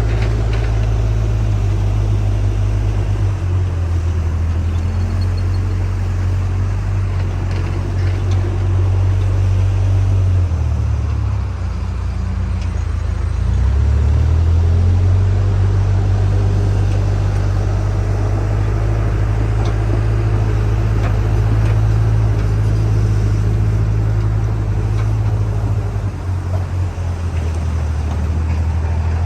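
Diesel engine of a JCB backhoe loader running steadily at work, its low engine note shifting in pitch and strength several times as the load changes.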